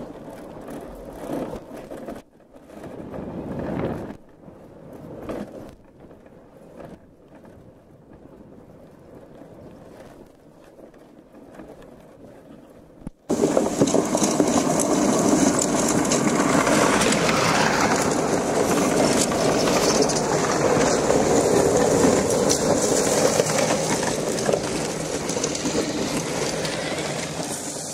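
Rubber crawler tracks of a Ziesel electric off-road wheelchair running over gravel, a rattling, uneven rumble. About thirteen seconds in it jumps suddenly to a louder, steady rumble.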